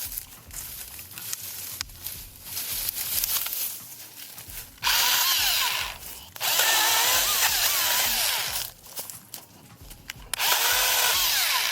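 Husqvarna 225i battery chainsaw cutting wood in three bursts, the first two a little after halfway and the last near the end, its motor whine dipping in pitch as the chain bites and rising again. Quieter rustling and clicks come between the cuts.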